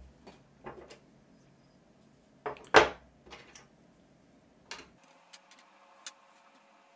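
Small metal parts of a wiper motor (washers, screws, a bracket) being picked up and set down on a wooden tabletop: a few scattered clicks and knocks, the loudest about three seconds in.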